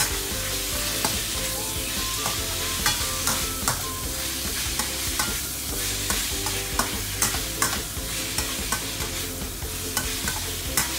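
Bok choy and chives sizzling in hot oil in a stainless steel wok while being stir-fried with a metal ladle, which clinks and scrapes against the pan at irregular moments over the steady hiss.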